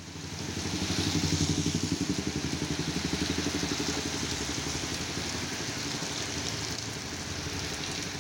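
Heavy rain falling with a steady hiss, over the low pulsing of a vehicle engine running close by. The engine is loudest about a second in, then slowly fades.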